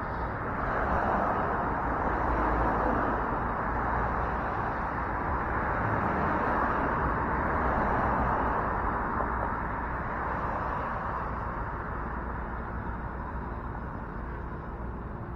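Street traffic: a steady hum of passing cars with a low rumble underneath, swelling and easing slowly over several seconds and dying down toward the end.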